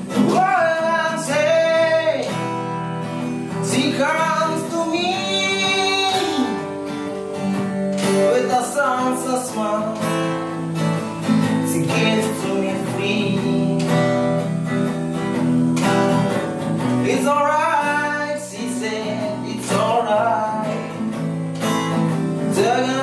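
A man singing a song in phrases to a strummed acoustic guitar, the voice coming in about half a second in.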